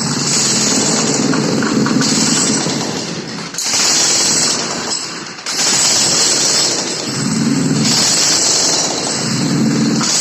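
Jackhammer hammering steadily, with two brief let-ups about three and a half and five and a half seconds in.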